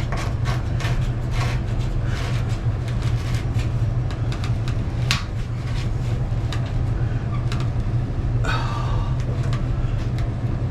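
Wrench and metal fittings clicking and knocking as a water-heater connection with washers is tightened, with a rougher scrape near the end, over a steady low hum.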